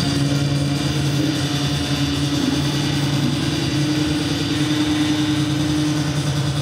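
Live bass guitar and synthesizer holding a steady, low droning note, with no clear beat.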